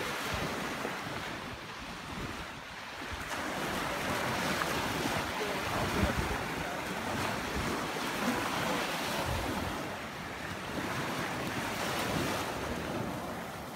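Small waves breaking and washing up a sandy shoreline, with wind buffeting the microphone.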